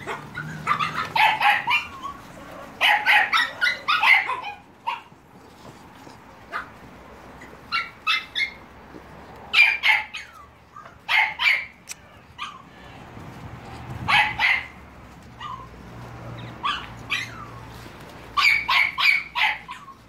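American Staffordshire terrier and Staffordshire bull terrier puppies yipping and barking in short, high-pitched clusters every few seconds as they play.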